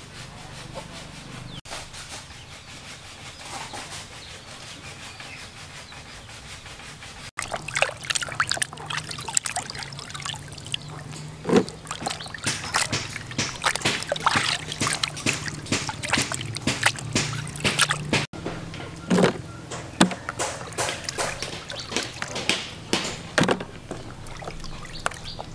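Hands washing a batch of small fish in a plastic basin of water: repeated splashing and sloshing, with a quieter stretch before the splashing starts.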